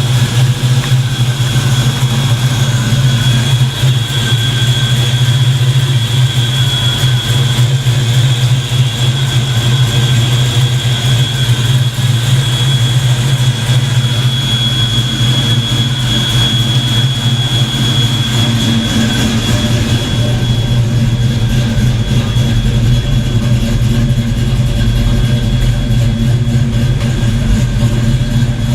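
Fox Body Mustang engine idling steadily, with a thin steady whine above the low idle.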